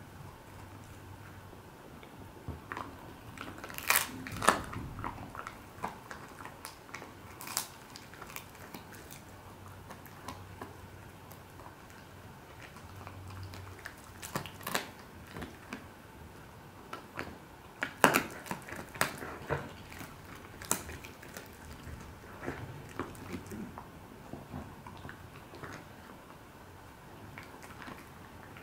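Border collie chewing a dried duck neck bone treat: irregular sharp crunches and cracks of bone, loudest about 4 and 18 seconds in.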